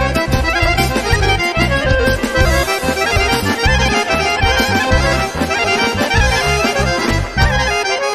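Romani kyuchek (Gypsy kyuchek) dance tune played by a Bulgarian folk band, with the accordion leading over a steady pulsing bass beat.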